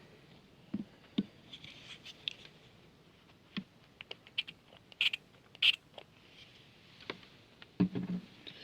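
Scattered small clicks, taps and scrapes of small objects being handled on a workbench, with two short hissy rustles about five seconds in.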